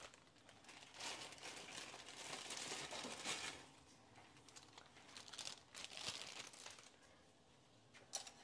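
Plastic instant-ramen packet crinkling in spells as it is handled and emptied over the pot, with a short click near the end.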